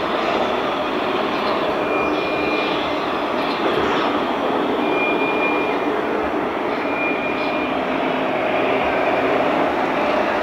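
Steady din of a busy model-building fair hall with RC construction machines running. A short high beep sounds four times, each about a second long, two to three seconds apart.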